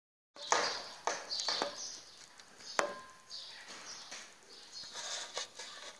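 Handling noise from a mobile phone being held and moved about: a series of short knocks and rustles, with one sharp click about three seconds in.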